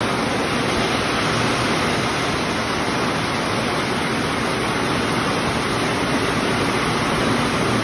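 Heavy rain pouring down steadily under a corrugated metal porch roof, a dense, even hiss with no letup.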